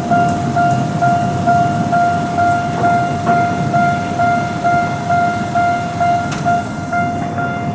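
Japanese level-crossing warning bell ringing a repeated electronic ding about three times a second. Under it is the low rumble of a Ginza Line 1000-series subway train rolling over the crossing, with a few sharp wheel clicks.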